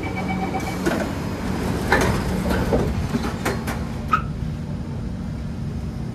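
Singapore MRT train heard from on board: a steady low hum with a steady tone that stops under a second in, then a series of sharp clunks and rattles between about one and four seconds in.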